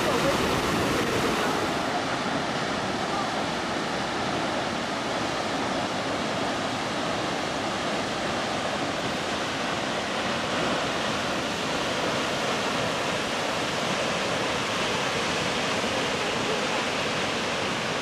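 Kegon Falls, a waterfall almost 100 m tall, plunging into its gorge: a steady, even rush of falling water.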